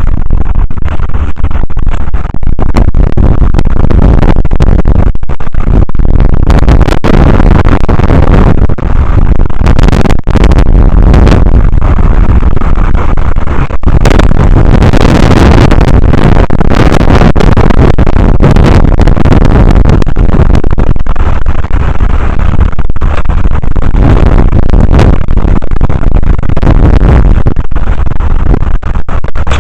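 Strong wind buffeting the microphone: a loud, overloaded rumbling noise that never lets up, with a few momentary dips.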